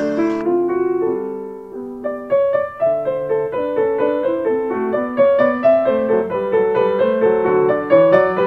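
Background piano music with a melody and chords; it dips briefly about two seconds in, then carries on.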